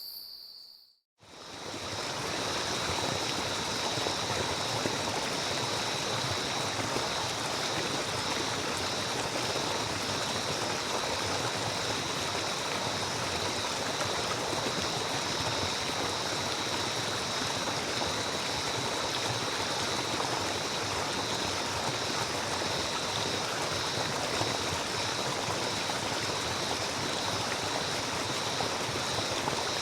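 Flowing stream: a steady, even rush of running water that fades in about a second in and holds unchanged.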